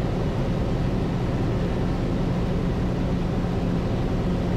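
Cessna 210 Centurion's piston engine running steadily, heard from inside the cabin as an even drone with a low steady hum.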